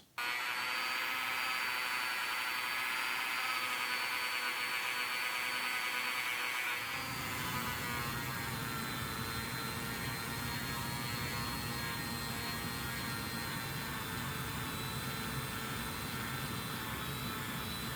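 Rotary tool running at speed with a puffball polishing wheel, a steady high-pitched whine, used to polish plastic hacksaw handles. About seven seconds in, a lower rushing noise joins the whine and stays.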